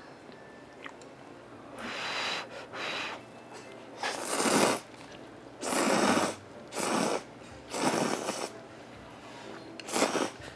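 A person slurping ramen noodles soaked in spicy broth from a small bowl. There are about six loud slurps, each under a second long, with short pauses between them.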